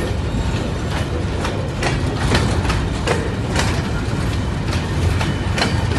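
Open box wagons of a coal freight train rolling past close by. Their wheels keep up a steady low rumble on the rails, with irregular sharp clicks, a few each second, as they cross rail joints.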